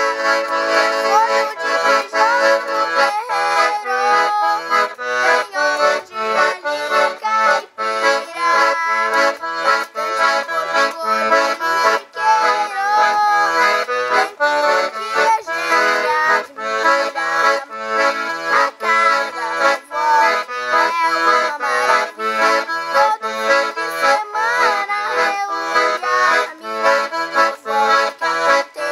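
Piano accordion playing a lively tune with a steady, even beat.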